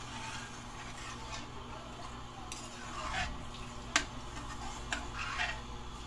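Metal ladle stirring coconut milk in a metal wok, clinking and scraping against the pan now and then, with a loud click about four seconds in. The milk is being stirred without stopping as it heats toward a boil, to keep it from scorching on the bottom.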